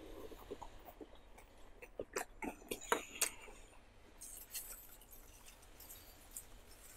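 Close-up eating sounds of fish noodle soup: a sip from a spoon, then soft chewing with wet mouth clicks and smacks, bunched about two to three seconds in.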